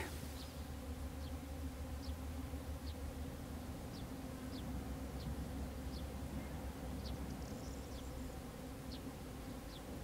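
Insects buzzing: a steady low drone with short, high chirps about once a second.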